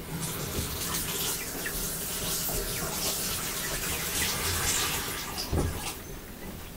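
Water running from a tap while a hand is washed under it; the water shuts off about six seconds in.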